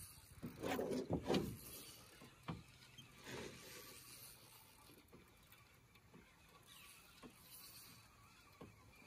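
Fishing reel working quietly with light mechanical clicking, and louder handling rustles and knocks about a second in.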